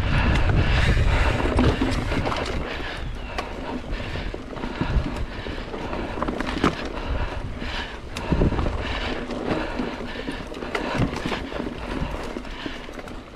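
Wind buffeting the microphone over the rattle and clatter of a mountain bike riding a dirt trail, with many small knocks and clicks from the bike; the wind is strongest in the first couple of seconds.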